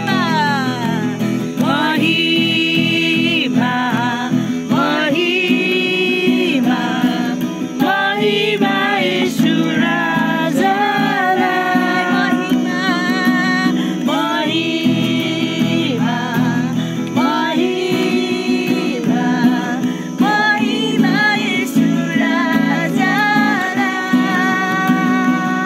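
A woman singing a song while playing an acoustic guitar, her voice holding and bending long notes over the steady guitar accompaniment.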